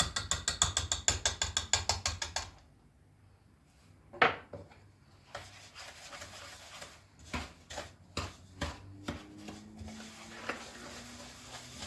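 Wooden spoon beating butter and sugar in a mixing bowl: rapid, even scraping clicks, about eight a second, that stop about two and a half seconds in. A sharp knock and a few lighter scattered knocks follow.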